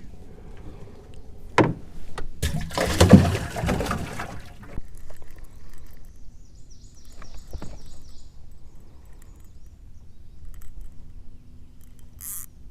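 Knocks and water sloshing around a small fishing boat, with a louder splashing, rustling stretch a few seconds in and a short run of high chirps near the middle.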